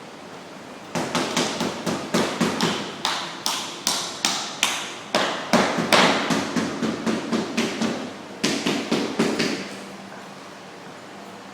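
A rapid, irregular run of sharp taps and knocks, several a second, starting about a second in and stopping a little before the end.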